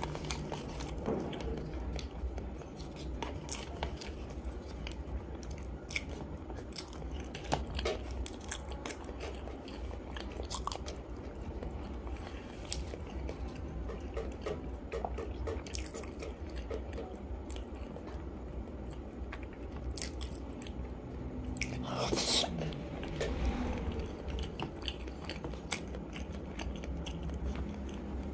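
Mouth sounds of someone chewing peeled hard-boiled chicken egg: soft wet chewing with scattered small clicks and lip smacks, and one louder, longer mouth sound a little over twenty seconds in.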